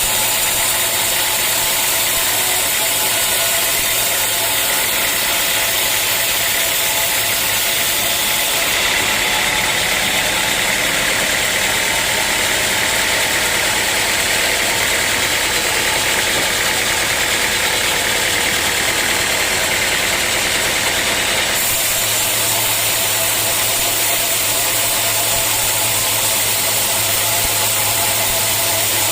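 Sawmill machinery running steadily and loudly. About nine seconds in it abruptly turns brighter and hissier, and it switches back about twenty-one seconds in.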